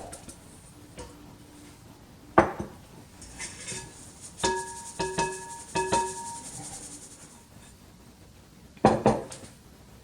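Number 40 flour sifter being knocked and tapped to shake the flour through: a sharp knock about two seconds in, three ringing metallic taps with a light rustle around the middle, and another loud knock near the end.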